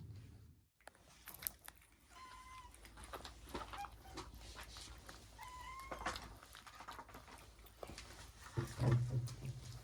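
A pet animal calling: two short calls, then a louder, lower call near the end, with small clicks and knocks between them.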